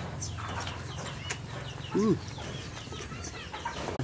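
Birds chirping repeatedly in short high notes over a low steady hum, with one louder short call that rises and falls about two seconds in.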